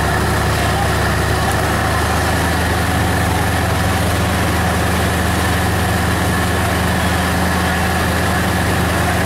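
Fire engine's motor running steadily at a constant speed, pumping water to the hose line, with a low even hum under a steady rushing noise.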